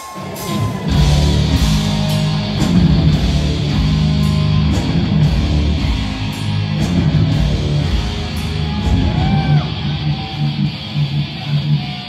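Heavy metal band playing live: distorted electric guitars, bass and drums come in together about a second in and carry on with a loud, dense riff, with cymbals struck repeatedly.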